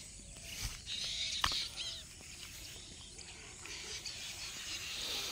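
Quiet outdoor ambience with the rustle of grass and leafy plants and footsteps as someone walks through low vegetation, and two sharp clicks within the first second and a half.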